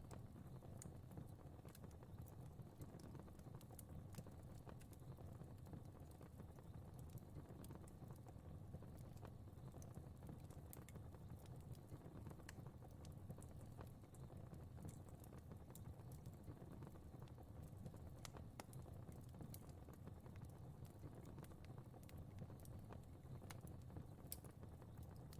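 Faint crackling fire: irregular small pops and snaps scattered over a low, steady rumble.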